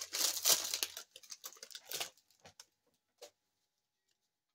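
Foil trading-card pack wrapper crinkling as it is torn open and handled for about the first second, followed by scattered soft clicks and taps of cards being handled up to about two seconds in, with one more tick a little after three seconds.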